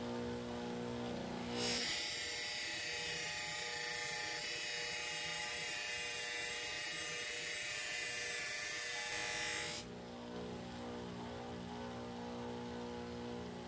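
Bench buffer motor running with a steady hum; from about two seconds in to about ten seconds a thin metal rod is pressed against the spinning buffing wheel, giving a loud, even hiss of polishing over the motor, which then hums on alone.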